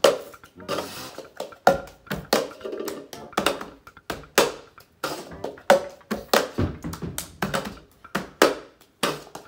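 Hands clapping and tapping an upside-down plastic party cup and knocking it on a wooden tabletop in a cup-game rhythm: a string of sharp claps and knocks, roughly two a second.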